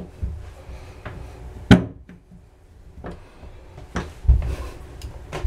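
A ratchet on a socket extension seated in a bathtub drain extractor tool: one sharp metallic click about a second and a half in, then a few quieter clicks and knocks near the end.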